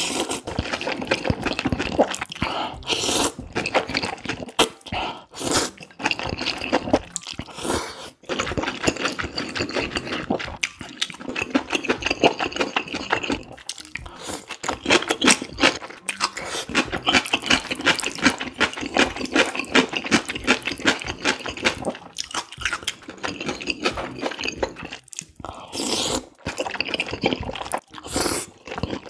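Close-miked slurping of thick, sauce-coated kalguksu noodles with wet chewing, in long stretches broken by short pauses.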